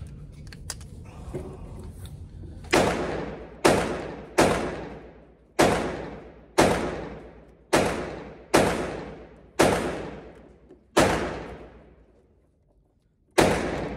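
Bulgarian Makarov 9x18 pistol fired in a string of about ten shots, roughly a second apart, each ringing on briefly in the indoor range. The last shot comes after a longer pause, near the end.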